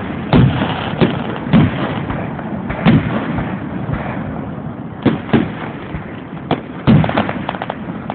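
Aerial fireworks bursting overhead: a string of sharp bangs at irregular intervals, with crackling between them and a flurry of small cracks near the end.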